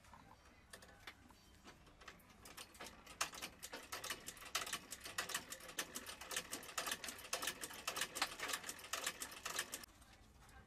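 Industrial shoe-repair sewing machine stitching a leather shoe. A few scattered clicks come first, then rapid, even ticking of stitches for about seven seconds, which stops abruptly near the end.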